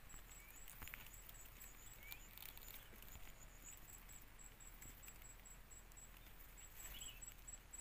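Near silence: faint outdoor ambience with a thin, high-pitched pulsing about four times a second, in runs, and a couple of faint short chirps.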